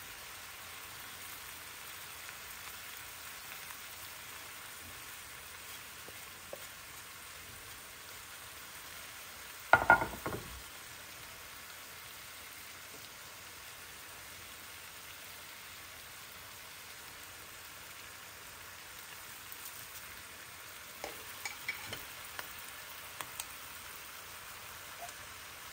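Lamb shanks and onions sizzling in a pot, a faint steady hiss, with one loud sharp clatter about ten seconds in and a few light clicks and taps a little past twenty seconds.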